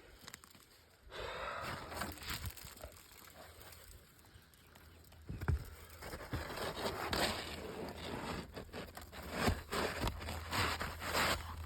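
Brittle asphalt roof shingles being pried and worked loose. There are irregular scraping, crackling and tearing noises with sharp clicks, busier in the second half.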